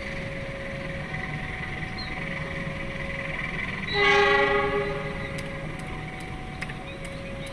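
A railway locomotive horn sounds one long blast about four seconds in, the loudest sound, its pitch sagging slightly as it fades. Behind it, a two-note warning tone alternates slowly, each note held about a second.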